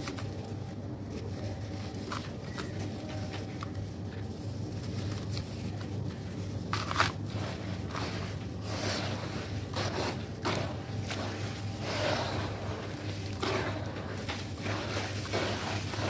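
Soft, wet red sand crumbling and being squeezed by gloved hands in a tub of water. It is quiet at first, then becomes a run of crackly crumbling and squishing strokes from about seven seconds in.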